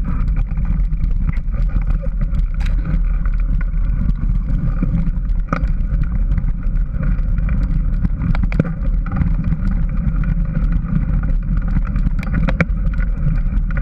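Steady, loud rumble of wind buffeting the microphone and of the ride over a dirt trail, with scattered sharp clicks and knocks from the bike and camera mount.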